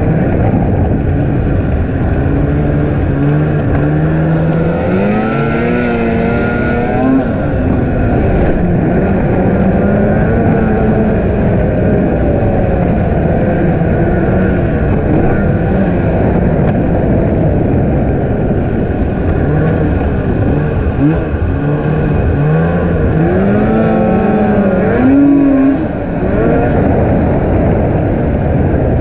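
Snowmobile engine running under throttle, its pitch climbing and falling several times as the rider speeds up and eases off, with the sharpest climb near the end. Beneath it runs a loud, steady rush of noise.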